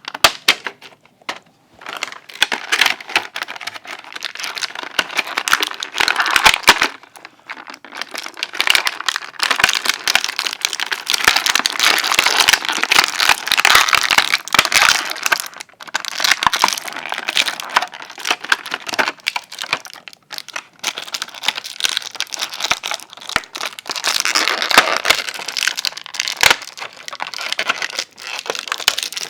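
Toy packaging crinkling and crackling as it is handled, in bursts broken by short pauses, with sharp clicks and snaps mixed in.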